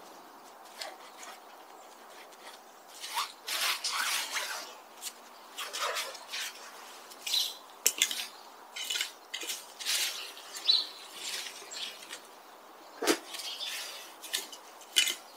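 Garden rake scratching and rustling through dry leaves and fallen thuja needles on a flower bed, in short, irregular strokes.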